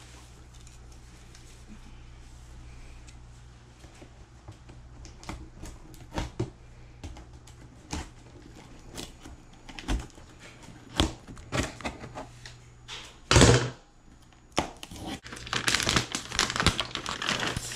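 Unboxing handling noise from a cardboard computer box: scattered clicks and knocks as scissors work at the packing tape on the box top, with one louder scrape or rip about thirteen seconds in. Near the end comes the crinkle of the plastic bag around the monitor as it is pulled out.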